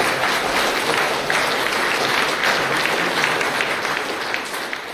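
Audience applauding, a steady clapping that tapers off slightly near the end.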